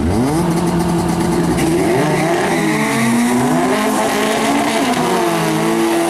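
Drag-racing cars pulling away from the start line: an engine revs up sharply at the start, then the cars run hard through the gears, the engine notes climbing and dropping back with each shift.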